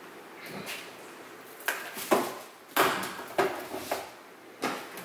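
Metal food cans being set down on a wooden kitchen cabinet shelf: about five knocks and clinks, the loudest around the middle.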